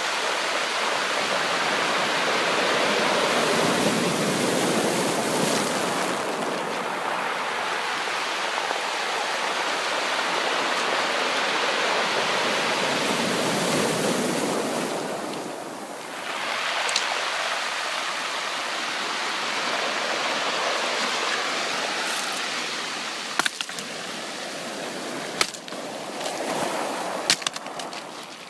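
Ocean surf washing in as a continuous hiss that swells twice and then eases. Near the end it is quieter, with a few sharp clicks.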